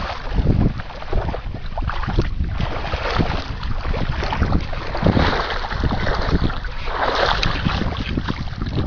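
Wind buffeting the microphone in uneven gusts, a low rumbling rush with hiss over it.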